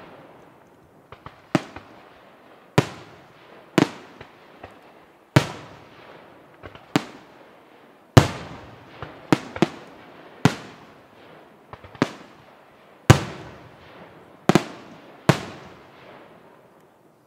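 Aerial firework shells bursting one after another: a dozen or so sharp bangs, roughly a second apart and some in quick pairs, each trailing off in a long echoing rumble. The bangs stop shortly before the end.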